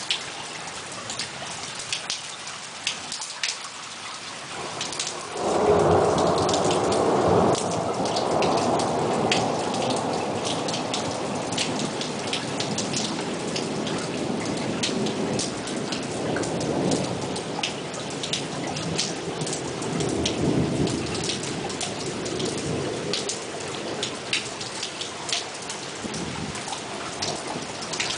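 Steady rain falling, with many close raindrops ticking. About five seconds in, a loud roll of thunder breaks in and rumbles on for several seconds. Fainter rolls of thunder come later.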